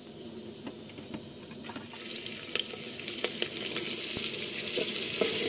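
Chopped onion, garlic and green chilli sizzling in hot ghee in an aluminium pressure cooker while a steel ladle stirs and scrapes them. The sizzle starts about two seconds in and grows louder, with light clicks of the ladle against the pot.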